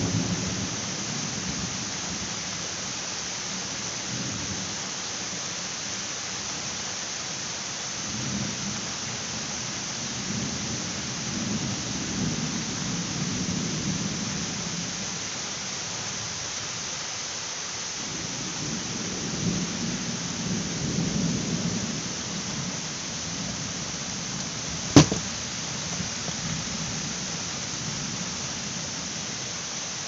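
A steady downpour of rain hissing on grass and leaves, with low rolls of distant thunder swelling twice: once about a third of the way in and again a little past the middle. A single sharp click sounds near the end.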